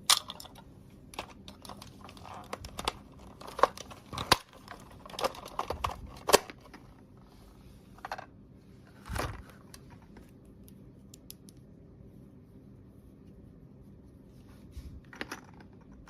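Small plastic toy pieces and packaging being handled: a quick run of clicks, taps and crinkling over the first several seconds, one more knock about nine seconds in, then a quiet stretch before a few more clicks near the end.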